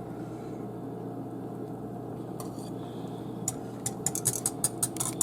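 A utensil stirring sauce in a pot, which is being brought to the boil to thicken it with a cold roux of oil and flour. About three and a half seconds in, the stirring starts as quick, regular clicks against the sides of the pot, about five a second, over a steady low rush.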